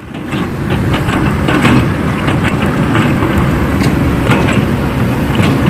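Radio-controlled model excavator and dump truck working: a steady, engine-like rumble with irregular clicks and clatter throughout.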